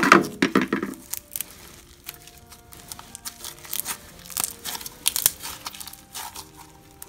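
A clear plastic tub clatters as it is handled and set down in the first second. After that comes a long run of irregular sharp crackles and clicks as a crumbly, sequin-filled glitter slime is pressed and kneaded between the fingers.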